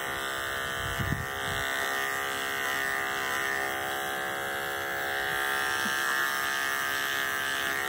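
Andis electric dog-grooming clippers with a number 10 blade running at a steady buzz while trimming the short hair on a miniature schnauzer's ear leathers.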